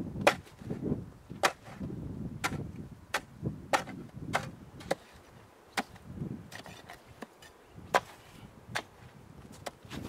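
A metal bar chopping at ice and frozen snow: about a dozen sharp, separate strikes, irregularly spaced roughly a second apart.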